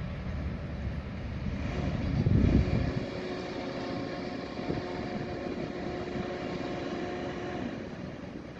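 Outdoor street ambience at a building site: a steady low rumble of traffic and machinery, with a louder low surge about two seconds in that sounds like wind on the microphone. A steady machine hum joins about two and a half seconds in and fades out near the end.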